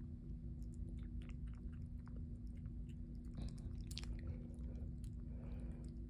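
Kitten suckling at a feeding bottle's rubber nipple: small irregular wet sucking clicks, over a steady low hum.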